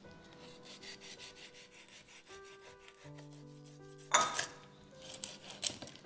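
Raw prawns being split along their backs: quick small scraping ticks from the blade working through the shells, with a louder rasp about four seconds in.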